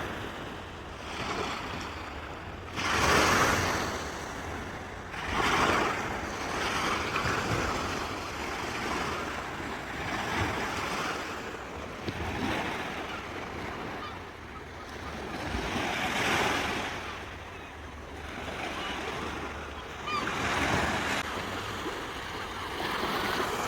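Sea waves breaking on a shore, the wash swelling and falling back every few seconds, with a low rumble of wind on the microphone underneath.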